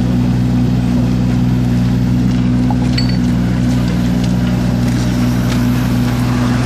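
IHI mini excavator's diesel engine running at a steady speed while its hydraulics work the boom and curb-stone clamp, lifting and setting a concrete curb stone.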